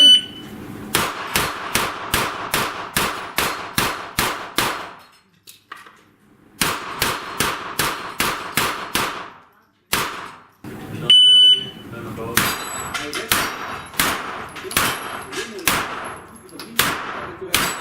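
Electronic shot-timer beep, then fast strings of pistol-calibre gunshots, about three a second, with the clang of hits on steel plates and poppers; a brief pause about five seconds in, a second timer beep about eleven seconds in, and another fast string.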